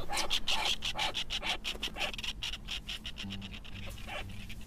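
Rapid dry rasping from a snow petrel in its rock-crevice nest, many short strokes a second. The rasping weakens about three seconds in, as a low steady hum comes in.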